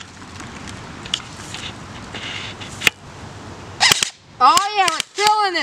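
BB gun firing: a single sharp shot about three seconds in, then a quick run of shots in the last two seconds. A voice gives two rising-and-falling calls over them.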